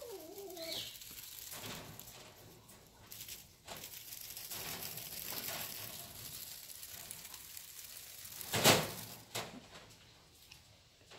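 A Havana Brown kitten's meow trailing off at the very start, then soft rustling and light handling noises, with one sharp knock about eight and a half seconds in, the loudest sound.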